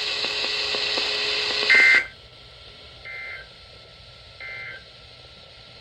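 EAS end-of-message data bursts on a NOAA Weather Radio broadcast: three short, buzzy two-tone digital squawks about 1.3 s apart, the first loud and the next two softer, signalling the end of the warning. Radio hiss runs before the first burst and drops away after it.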